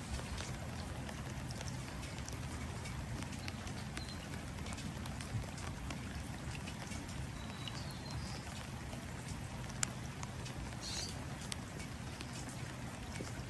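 Steady rain falling into water, with scattered individual drops tapping. A few short, faint bird chirps come through about four, seven and eleven seconds in.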